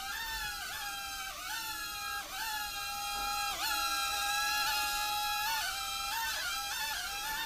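A Cheerson CX-10D nano quadcopter's tiny coreless motors and propellers whining in flight. The high, several-toned whine dips and swoops back up every second or so as the throttle and sticks are worked.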